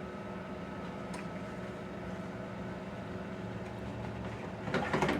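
Countertop air fryer running on broil, its fan giving a steady hum. A brief clatter comes near the end.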